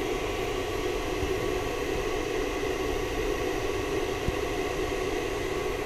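Steady whirring hiss of a fan running, with an even hum under it, unchanging throughout; one faint click about four seconds in.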